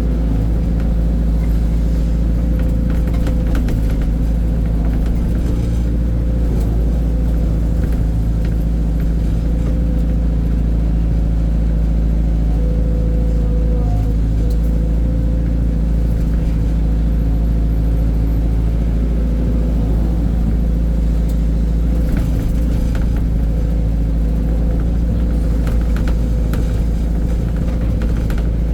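Dump truck engine running steadily, a deep low drone with a constant hum over it.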